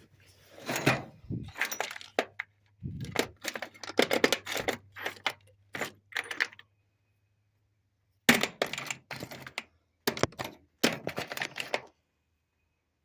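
Metal hand tools and sockets clattering and clinking as a toolkit is rummaged through, in two stretches of rapid knocks with a short pause in between.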